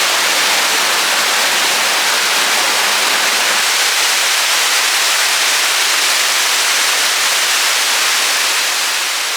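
Rushing water of a waterfall: a steady, loud wash of noise close to the microphone, beginning to fade near the end.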